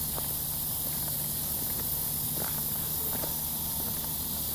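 Steady outdoor background hiss with a low, even hum underneath and a few faint clicks.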